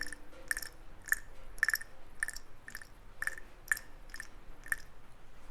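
Twin-gear oil pump from a 1964 Norton Atlas being turned over by hand. Its oily gears make short, wet clicks about twice a second, which stop near the end.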